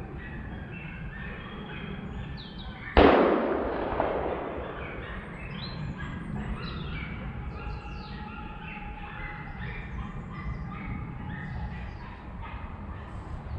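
A single gunshot about three seconds in, echoing and dying away over a second or two. Short distant calls repeat in the background.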